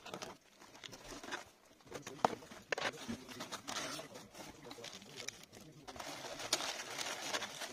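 Rustling and crinkling of shredded paper packing fill, foam wrap and a plastic bag being handled in a cardboard box, in uneven bursts with a few sharper crackles.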